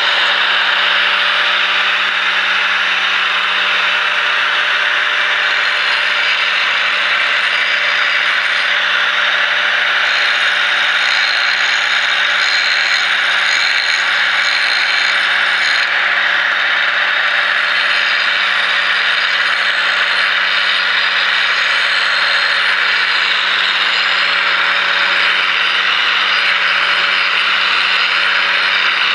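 Drill Master 4-inch angle grinder running steadily at speed, its abrasive wheel grinding the steel edge bevel of a Schrade hatchet: a steady motor hum under a continuous, loud grinding hiss.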